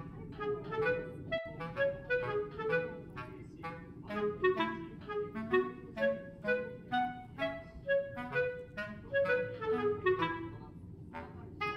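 Background music: a light melody of short, quick notes.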